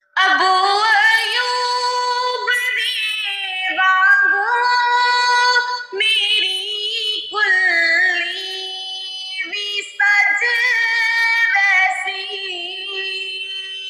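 A single high voice singing a Punjabi naat unaccompanied, in long held phrases with wavering, ornamented notes and short breaths between them. It starts suddenly after a moment of silence.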